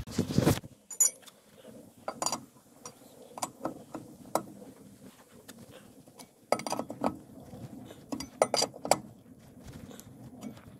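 Sharp metallic clinks and knocks, in irregular clusters, from a four-way cross lug wrench being fitted onto and worked against the lug nuts of a steel wheel to loosen them.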